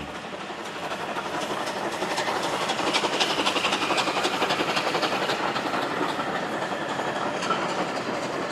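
Steam train running past, a dense rushing and clattering that swells over the first few seconds and eases slightly near the end.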